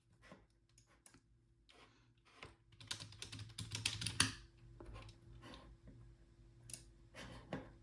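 Irregular sharp clicks and ticks, sparse at first and coming thick and fast about three to four seconds in, over a faint steady hum.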